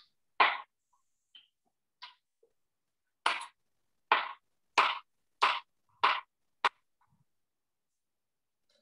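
Chef's knife chopping down onto a cutting board while dicing an avocado: seven sharp knocks, one shortly after the start and then six in a steady run of about one and a half a second, with a few faint ticks between.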